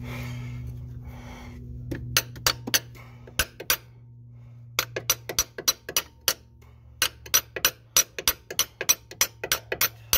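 Hammer blows on a steel punch driving into the old axle seal in the transaxle case, denting one side inward to free the seal. Sharp metallic strikes begin about two seconds in, come in short groups, then quicken to about four or five a second.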